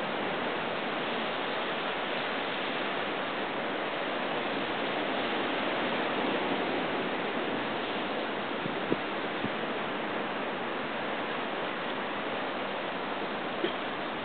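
Steady wash of ocean surf on a rocky shore, an even hiss-like roar that swells a little in the middle. Two brief clicks, one about nine seconds in and one near the end.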